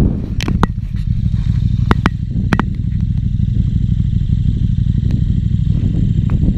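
KTM 1290 Super Duke R's V-twin engine idling steadily with a low rumble, with a few sharp clicks over it.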